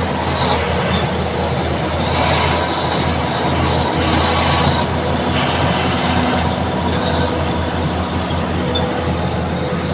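Bulldozer's diesel engine running steadily, with metallic clatter and a few brief high squeaks from the machine, the clatter swelling a couple of seconds in.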